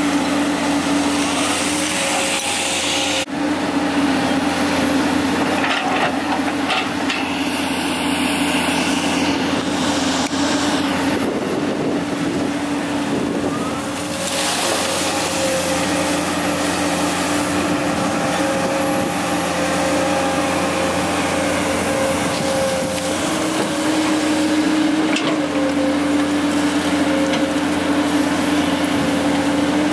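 Komatsu PC200 hydraulic excavator working, its diesel engine running steadily under load with a constant whine as the boom and bucket dig through refuse; a few knocks.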